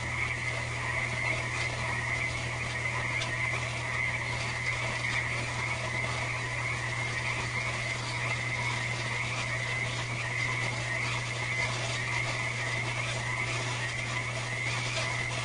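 Night chorus of many frogs calling together without pause, a dense steady mass of high calls with lower croaks mixed in and a steady low hum underneath.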